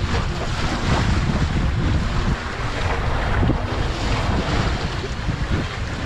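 Sea waves washing in and splashing among concrete wave-breaker blocks, with wind buffeting the microphone.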